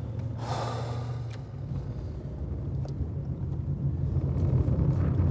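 Steady low engine and road rumble of a moving car heard from inside the cabin, growing louder after about two seconds. A short breathy sound comes about half a second in.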